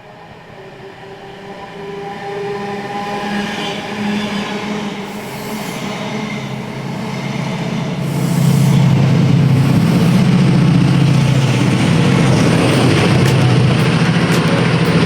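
Class 68 diesel locomotive with its Caterpillar V16 engine running. It grows louder over the first eight seconds, then holds loud and steady, with a few sharp clicks near the end.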